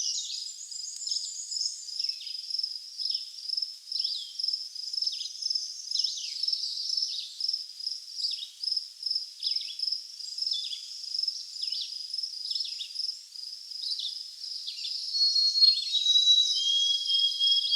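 A songbird repeating a short high call that slurs down in pitch, about once a second, over a steady high insect-like hum. Near the end a white-throated sparrow sings its clear whistled song, long pure notes that step down in pitch.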